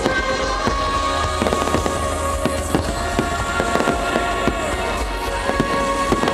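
Fireworks bursting and crackling over the show's music, with many sharp bangs and crackles that come thickest in the middle. The music holds steady sustained chords underneath.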